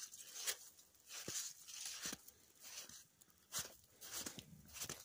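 Footsteps of a person walking along a trail in melting snow, a step about every half second to second.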